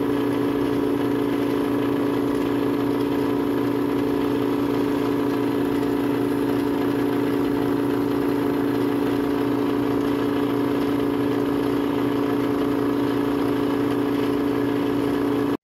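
Electric motor driving a 3D-printed permanent magnet generator through a belt and pulley, the generator shaft turning at about 900 rpm. A steady running hum made of a few fixed tones that never changes in pitch or level.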